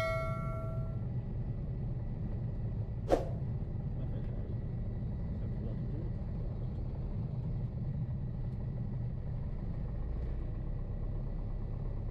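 Piper Cherokee 140's four-cylinder Lycoming O-320 running steadily at low taxi power, heard as a low drone from inside the cockpit. One sharp click about three seconds in.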